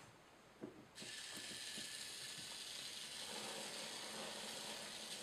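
Nitrous-oxide cream whipper dispensing: a few faint clicks, then about a second in a steady hiss starts as the lever is squeezed and whipped cream sprays out of the nozzle.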